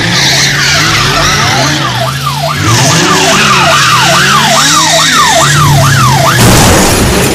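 Police chase sound effect: a police siren yelping up and down about twice a second, starting about a second in and stopping near the end, over a steady car engine and tyre screech.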